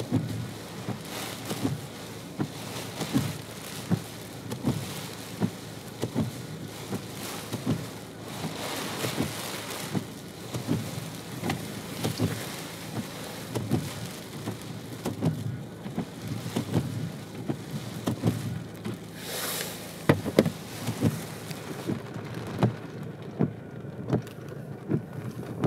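Sleet and small hail striking a car's roof and windscreen, heard from inside the car: a steady hiss with many irregular sharp taps, several a second. A short louder hiss comes about 19 seconds in.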